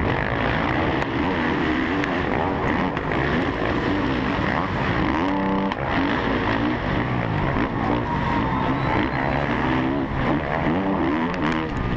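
Motocross bike engine at race pace, heard from the rider's helmet. Its pitch climbs and drops again and again with throttle and gear changes, over a constant rush of wind and track noise.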